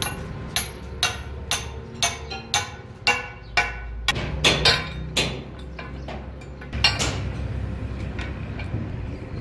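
Sharp metal-on-metal knocks from steel tools on a truck tie rod end, about two a second for the first three and a half seconds. A few louder clanks follow around the middle and one near the end, as a screw press is fitted over the joint. A steady low hum runs underneath.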